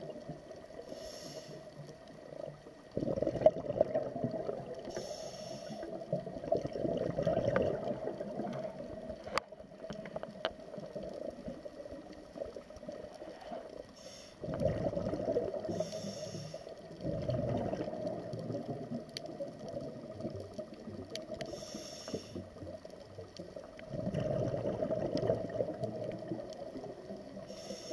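Scuba diver's regulator breathing heard underwater: a short hiss on each inhale, then a few seconds of exhaust bubbles on each exhale. About four breaths go by, one every six to ten seconds.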